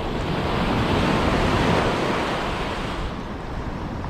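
Rough surf washing over a shallow reef edge: a steady rushing that swells about a second in and eases off near the end. Wind rumbles on the microphone underneath.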